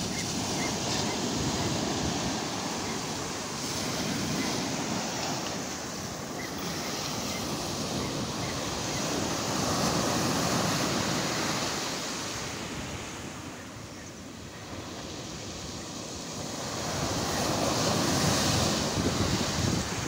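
Storm surf on the Black Sea breaking and washing up a pebble beach, the rush swelling and fading with each wave and dipping lowest about two-thirds of the way through. Wind buffets the microphone.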